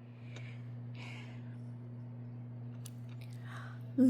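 Steady low hum in a small room, with a few faint rustles and a couple of soft clicks. A loud, steady hummed tone starts right at the end.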